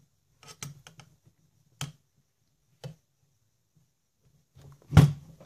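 Small metallic clicks of a hex driver and grub screw working in a model propeller shaft's universal joint, a few scattered clicks, then one much louder knock about five seconds in.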